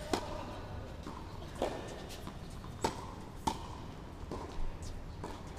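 Tennis rally on a hard court: sharp pops of the ball coming off racket strings and bouncing on the court, about five of them spaced roughly a second apart.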